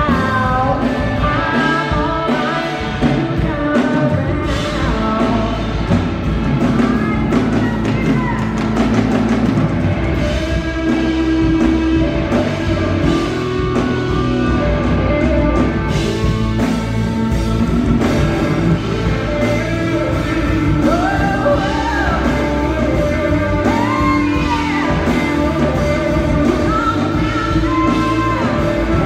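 Live blues-rock band playing a song, with a woman singing lead over electric guitar and drum kit, the guitar or voice bending notes up and down.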